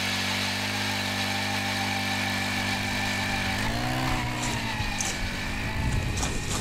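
Jiffy ice auger's small gas engine running under load as it drills through pond ice. Its speed rises briefly about four seconds in and then settles, with rougher clattering noise near the end.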